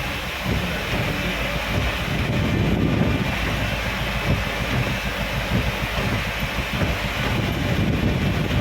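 Steady rumble of a vehicle driving on a wet road in heavy rain, with rain and wind noise over the engine and tyres.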